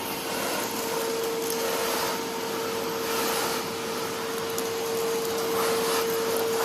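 DeWalt Stealth Sonic wet/dry shop vac running, with a steady motor whine over rushing air that swells and eases as it sucks up debris.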